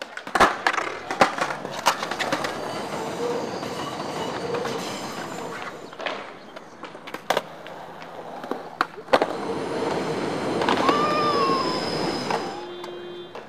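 Skateboard wheels rolling on concrete, with sharp clacks of the board hitting the ground several times. An elevated train passes, its steady rumble swelling louder in the second half, with a brief wheel squeal near the end.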